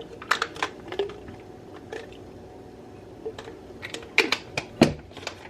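Plastic vitamin bottles being handled: scattered light clicks and knocks, one cluster near the start and another near the end, with the sharpest knock near the end.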